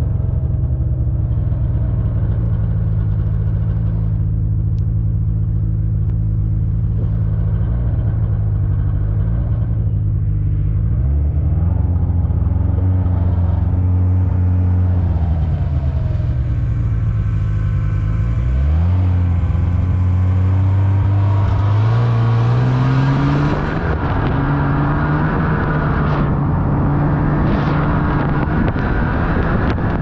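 Vehicle engine running steadily as it drives through deep snow, then changing speed, its pitch dipping and climbing several times in the second half. A rushing noise grows louder later on.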